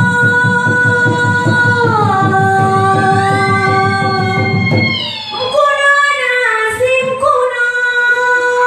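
A woman singing into a microphone over a steady beat: she holds long notes, slides down to a lower held note, breaks into quick runs about halfway through, then settles on a long held note again.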